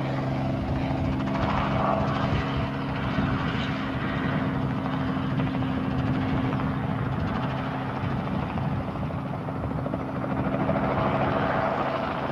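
Robinson R44 helicopter flying low and turning: the main rotor beats in a fast, steady pulse over the hum of its piston engine. It swells louder about two seconds in and again near the end as it passes.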